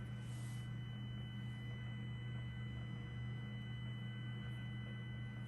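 Radio scanner's speaker putting out a steady low hum with faint high steady tones above it: radio-frequency interference (a 'birdie') from a Wyze Cam Spotlight Kit, picked up on 156.0150 MHz.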